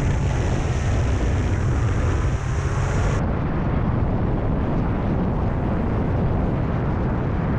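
Steady rushing wind and propeller noise of a foamboard RC plane in flight, picked up by a camera mounted on the plane. The highest hiss drops away about three seconds in, leaving the low rumble.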